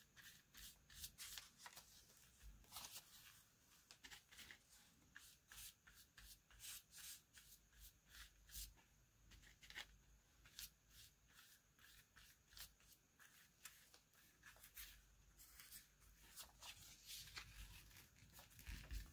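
Faint scratching and rustling of a paintbrush working over paper while the paper is handled, in many short irregular strokes.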